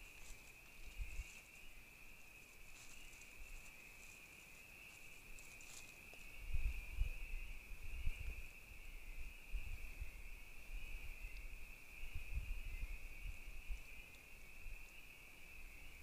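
Faint, steady high-pitched whine that does not change, with a few low rumbles in the middle and some faint rustling.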